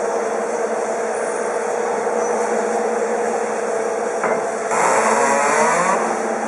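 Humber plastic-belt spiral freezer running: steady motor hum with the rattle of the spiral conveyor belt. About four seconds in there is a click, then a louder stretch of wavering whine for over a second.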